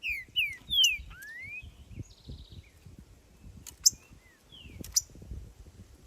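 Green-winged saltator (trinca-ferro) singing loud, clear whistles: three quick falling notes and then a rising one in the first second, with a few softer notes later. Two sharp clicks cut in around four and five seconds in, the first the loudest sound, over a low rumbling noise.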